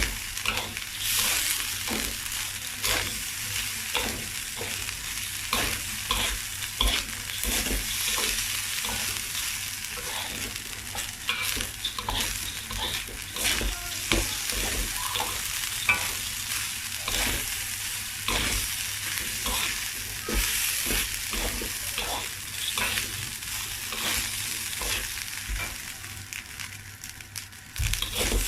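Uncooked rice frying in a pan with sauce: a steady sizzle, broken by irregular scrapes and knocks of a utensil stirring it against the pan.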